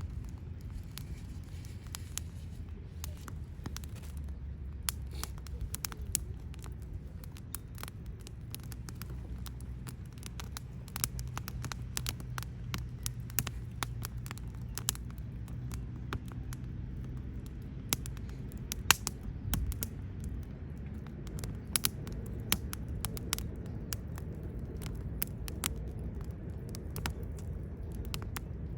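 Wood campfire burning, crackling with many irregular sharp pops, over a low steady rumble.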